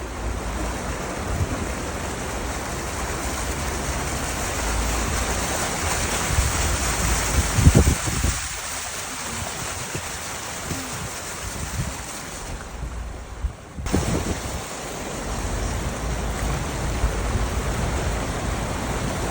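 Steady rushing noise with low gusts of wind buffeting the microphone, easing off briefly about two-thirds of the way through.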